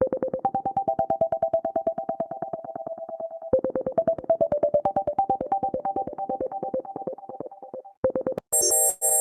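Stock Android (AOSP) ringtone playing: a synthesized melody of quick, short repeated notes in a middle register, its phrase starting over about a third of the way in. Near the end it stops, and a different, brighter ringtone with high chiming notes begins.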